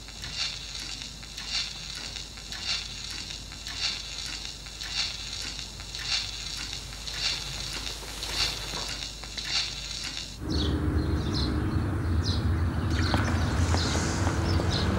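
Pendulum case clock ticking steadily, a little under two ticks a second, over a faint hiss. About ten seconds in it cuts off and gives way to a louder, steady outdoor background with a low rumble.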